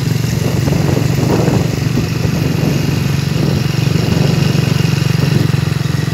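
Small motorcycle engine running steadily at low speed while being ridden.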